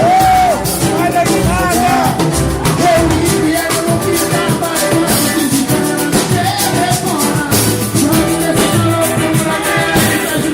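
Live band playing a Brazilian balanço-style song with a melodic vocal line over a steady drum beat and percussion.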